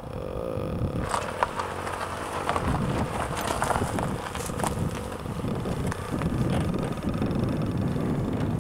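A car running close by on a gravel lot, with wind on the microphone and a few sharp clicks over the steady low rumble.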